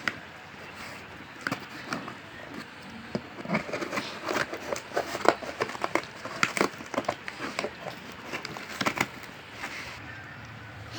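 Delivery packaging being crinkled and torn open by hand: irregular crackling and rustling, heaviest in the middle of the stretch, to get at a small box inside.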